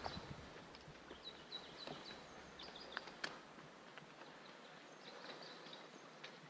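Faint forest ambience with small birds giving short, high chirps again and again, and a few sharp clicks such as footsteps on the trail, the loudest about three seconds in.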